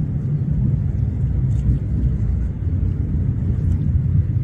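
A loud, steady low rumble with no clear rhythm.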